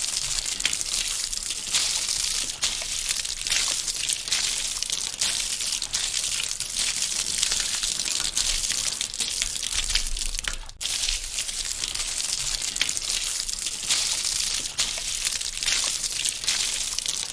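Water running and spattering onto a metal surface: a steady hissing patter full of small sharp ticks, with a brief break about ten and a half seconds in.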